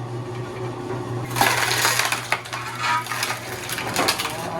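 Motor-driven screw-cone log splitter running with a steady hum, its screw boring into a log. From about a second in, the wood crackles and snaps as it starts to split.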